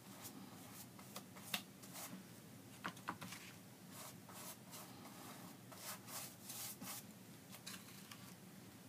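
Faint, irregular scratching and light taps of a paintbrush stroking paint onto poster board.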